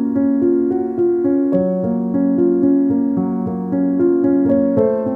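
Background music: a keyboard plays a steady pulse of repeated notes, about four a second, over held bass notes that change twice.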